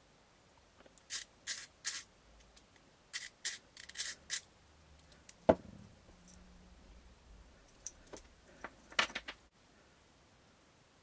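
Hand-work noises of small tools and parts: a run of short scratchy clicks and scrapes, one sharp knock about halfway through, then a few more clicks.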